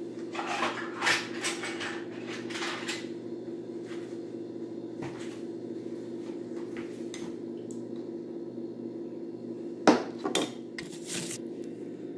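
Kitchen clatter of dishes and utensils being handled: a run of clinks and knocks in the first few seconds, then a sharper group of knocks about ten seconds in, over a steady low hum.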